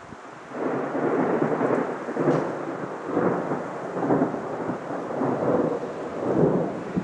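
Thunder from a thunderstorm forming directly overhead, rolling in about half a second in and rumbling on in several swells before breaking off sharply near the end.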